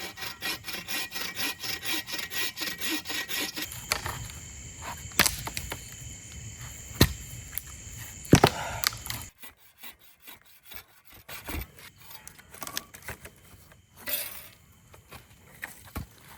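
A blade shaving a piece of wood into curls for fire-starting. Rapid scraping strokes run for the first few seconds, then come a few separate knocks, then quieter scraping and small clicks.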